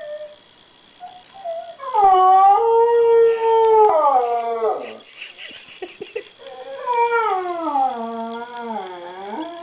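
A husky howling twice. The first long howl starts about two seconds in, rises, holds steady and then slides down. The second, wavering howl falls away near the end. The dog is howling in answer to a baby's voice heard on a computer.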